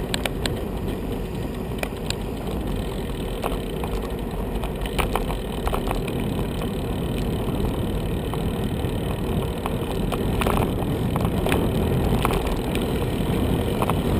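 Steady rumble and wind noise of a bicycle riding over a rough, worn road surface, picked up by a bike-mounted camera, with scattered clicks and rattles.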